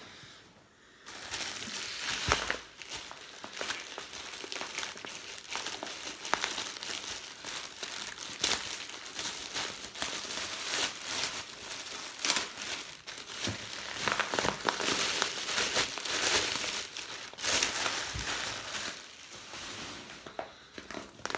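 Thin plastic bag crinkling and rustling as hands tear into and rummage through plastic wrapping. It starts about a second in and eases off near the end.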